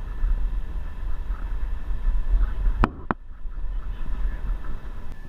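Low, steady rumble of a moving road vehicle heard from inside, engine and tyre noise, with two sharp clicks close together about three seconds in.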